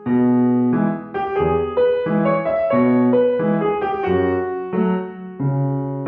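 Background music: a piano playing a gentle sequence of notes and chords, a new note every half second or so.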